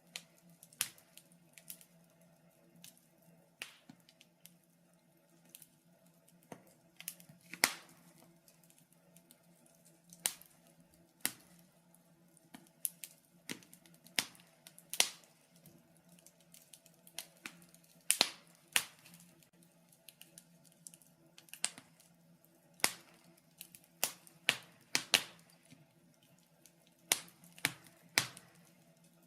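Wood fire crackling in a fireplace: irregular sharp pops and snaps, a few of them louder, over a faint steady hum.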